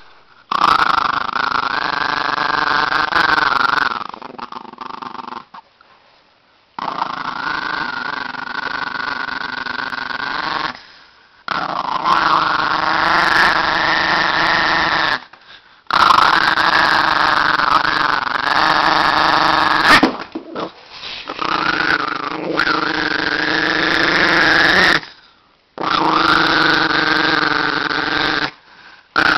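Chihuahua growling angrily in long pitched growls of three to four seconds each, about six in a row with short breaks between.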